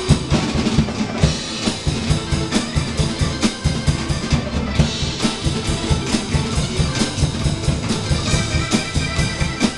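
Drum kit played in a steady groove: bass drum, snare and ringing cymbals struck several times a second.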